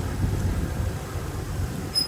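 Heavy earthmoving machinery running: a steady, low diesel rumble.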